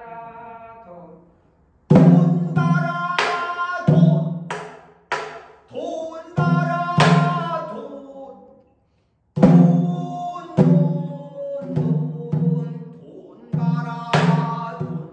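Korean pansori singing, a voice holding and bending long notes, with sharp stick strokes on a buk barrel drum marking the rhythm. It begins softly, turns loud about two seconds in, and breaks off briefly past the middle.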